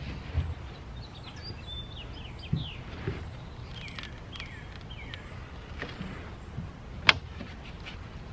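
Soft thumps and, about seven seconds in, one sharp click as a Sportspal canoe rib is forced down against the foam floor liner, over a steady low outdoor hum. A bird calls a run of short falling chirps in the first half.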